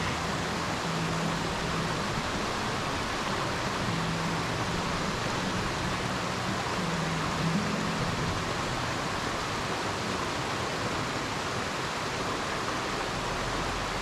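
Steady rush of water falling at a waterfall, an even noise spread across all pitches.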